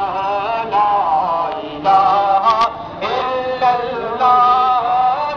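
Male voice singing a naat in Urdu, with long held notes that waver and slide in pitch and short breaks between phrases.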